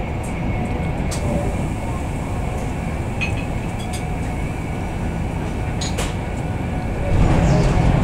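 Steady rumble and rush of an InterCity 225 Mark 4 coach running at speed behind a Class 91, heard inside the cabin, with a few sharp clicks. About seven seconds in, a train passing alongside adds a louder rush.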